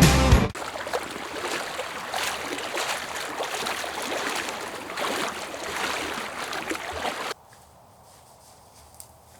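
River water flowing and splashing close by, cutting off abruptly about seven seconds in to a much quieter background with a faint click.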